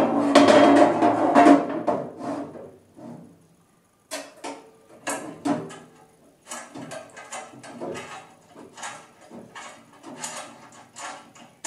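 A metal mounting plate clattering and scraping against the parcel box's base as it is lined up. After a short pause, a run of small irregular clicks and knocks as Allen screws with washers are fed through the holes on an Allen key.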